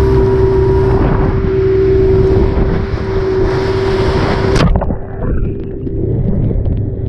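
Motorboat running fast through choppy water: a steady engine hum under a rush of wind on the microphone and spray off the hull. About two-thirds of the way through the hiss drops away abruptly, with a couple of knocks, while the engine hum carries on.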